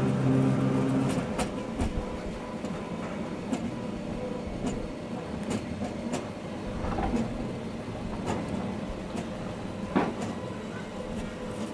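Train running with no power on: wheels click over rail joints about once a second under a steady rumble. The steady hum of the drive cuts out about a second in.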